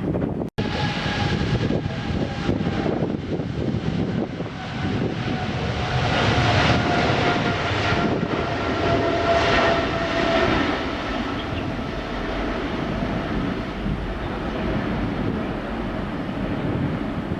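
Jet airliner engines on the takeoff roll, a loud, steady engine noise with a whine that slowly falls in pitch, loudest about six to ten seconds in. The sound cuts out for an instant near the start.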